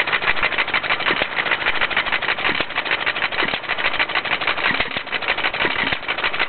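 Old Ideal air-cooled lawnmower engine running steadily: a fast, even clatter with a heavier stroke every second or so at uneven spacing.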